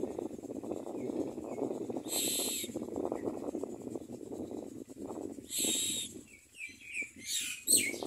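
Common myna nestlings begging at the nest: a continuous harsh rasping, broken by two short, higher shrieks and a few quick chirps near the end.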